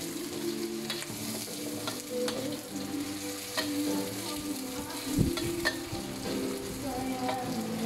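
Sliced onions sizzling in a black wok as a metal spatula stirs them, clicking and scraping against the pan now and then, with one louder knock about five seconds in.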